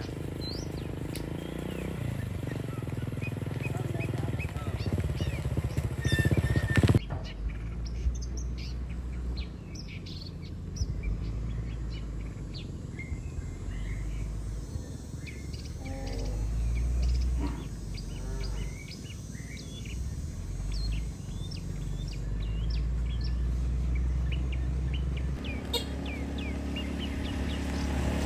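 Small birds chirping and calling, many short high notes scattered throughout, over a steady low rumble. The background changes abruptly about seven seconds in and again near the end.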